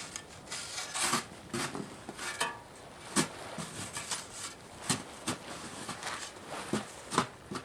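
Scattered knocks, taps and scraping with rustling in between: hands working at the wooden and plastic parts of a tent frame being taken apart. The knocks come at uneven intervals, the sharpest about three seconds in.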